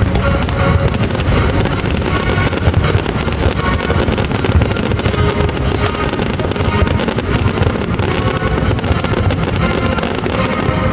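Fireworks bursting and crackling in a dense, unbroken run of sharp bangs, with music playing alongside.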